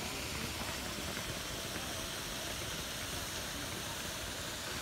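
Steady splashing and rushing of water from a large stone fountain.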